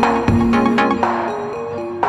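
Electronic music with a stepping synth melody and a steady low beat.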